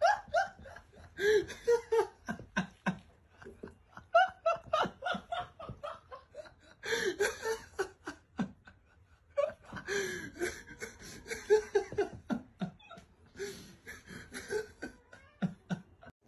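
A person laughing hard in several long bouts, in quick repeated pulses of high-pitched laughter with short breaths between bouts.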